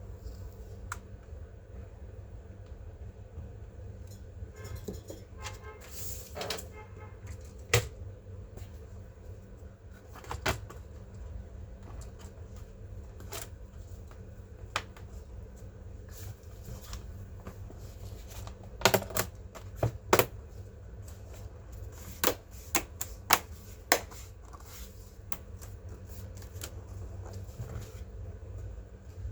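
Scattered sharp plastic clicks and taps from a laptop being handled during a RAM and SSD upgrade, with a quick rattling run of clicks about six seconds in and a cluster of louder clicks after about nineteen seconds, over a steady low hum.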